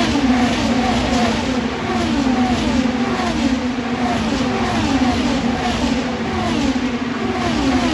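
A stream of IndyCar race cars with twin-turbo V6 engines going past one after another at racing speed, each engine note falling in pitch as it passes, about a dozen in quick succession.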